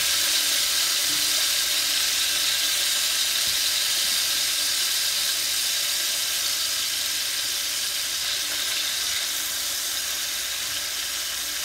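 Chicken pieces sizzling steadily in hot oil in a cast iron skillet as they brown, the hiss easing a little toward the end.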